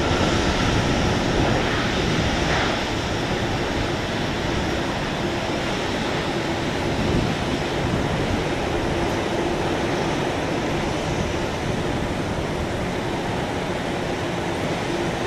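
Steady rushing of a Boeing 757-200's Pratt & Whitney PW2037 jet engines as the airliner rolls out along the runway after landing. The sound eases slightly in the first few seconds, then holds even.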